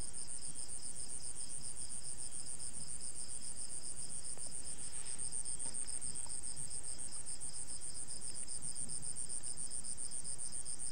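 Crickets chirping in a steady night chorus: a high, fast, evenly pulsed trill at a constant level.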